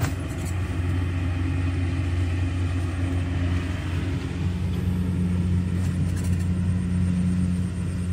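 An engine running steadily at idle with a low drone, and a higher hum coming up about halfway through.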